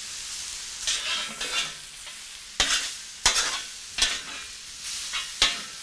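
Beef, tomatoes and chow mein noodles sizzling on a hot flat-top griddle as they are tossed and mixed, with several sharp clacks of a metal spatula and tongs striking the griddle in the second half.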